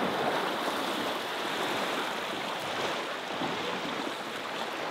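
Steady rush of fast-flowing river water around a drifting boat, an even hiss with no distinct events.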